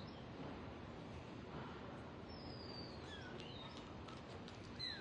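A few short, high, thin animal calls, each gliding downward, mostly in the second half, over a steady background hiss.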